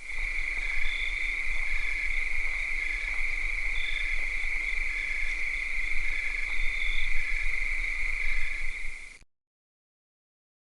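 Cicadas in a steady high-pitched chorus, with shorter chirps repeating over it about once a second. The chorus cuts off abruptly about nine seconds in to dead silence.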